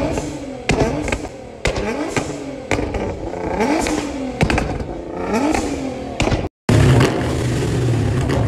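Nissan GT-R's twin-turbo V6 revved hard about once a second, each rise in revs ending in sharp exhaust pops and bangs from a tune that shoots flames. After a sudden cut near the end, a Chevrolet Camaro's engine runs with a steady deep rumble.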